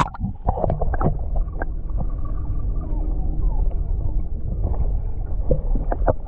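Muffled underwater sound from a camera held beneath the surface of a clear river: a splash as it goes under, then a steady low rumble with scattered clicks and ticks of moving water.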